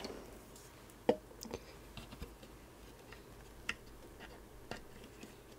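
Faint, scattered small clicks and taps of a stripped-down floppy drive mechanism being handled, about five spread a second or so apart over low room hiss.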